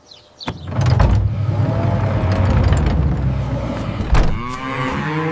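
A low mechanical rumble for about three and a half seconds, then a sharp knock, and a cow starting to moo near the end.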